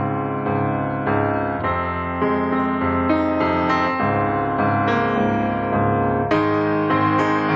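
Background piano music: held chords on a piano or electric piano, changing about once a second.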